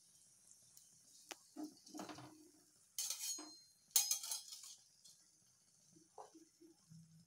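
A metal slotted spoon and strainer clink and scrape against a kadhai as fried atrasa is lifted out of hot oil. The loudest clatters come about three and four seconds in, over a faint steady sizzle of frying oil.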